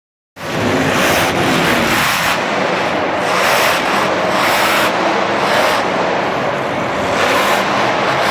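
Barbarian monster truck's supercharged V8 engine revving hard, its throttle opening and easing in repeated surges as the truck drives and jumps.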